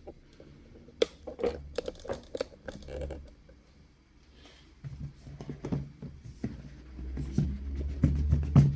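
Cardboard scraping and rustling as a printed outer sleeve is slid off a router's cardboard box, with a string of sharp knocks in the first few seconds and louder scraping near the end.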